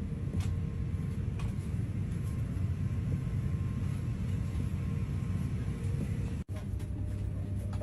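Steady rumbling drone of a jet airliner in flight, heard inside the passenger cabin, with a faint steady hum over it. The sound drops out for an instant about six and a half seconds in.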